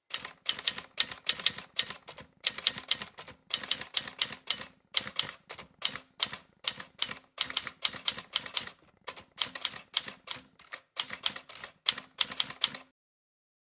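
Typewriter-style typing sound effect: rapid, uneven runs of key clacks broken by short pauses, which stop abruptly shortly before the end.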